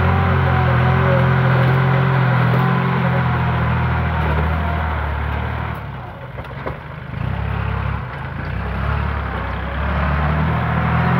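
Kubota compact tractor's diesel engine running under steady throttle as the tractor works loose dirt. The engine note drops for a couple of seconds about six seconds in, then comes back up.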